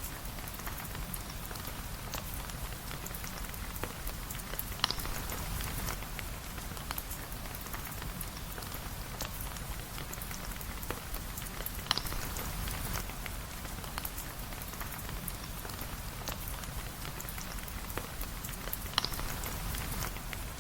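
Steady rain falling on a surface, a dense even patter of small drops, with three louder sharp ticks about seven seconds apart.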